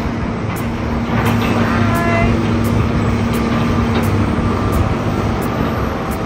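Steady rumble of road traffic with a continuous low hum.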